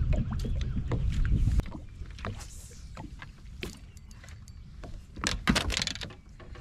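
Small fishing boat on open water: a low wind rumble on the microphone that cuts off about a second and a half in, then faint water noise with scattered clicks and taps of rod and reel handling, a louder cluster of rattles near the end.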